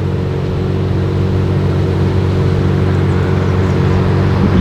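Ferrari 812's naturally aspirated V12 idling steadily.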